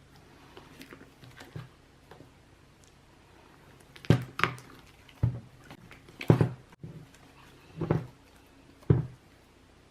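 Slime being squished and pressed by hand: a few faint clicks, then a run of sharp squelching pops about once a second in the second half.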